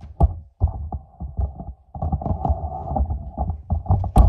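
Irregular low thumps and short knocks of a handheld phone being carried and handled, over a steady hum.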